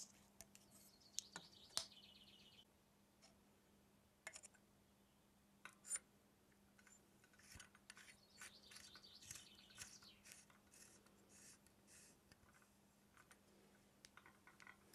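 Faint handling sounds of plumbing work: PTFE tape crackling as it is pulled off its reel and wound onto a copper pipe end, then a run of small metallic ticks and scrapes as a compression nut is turned onto an isolation valve by hand.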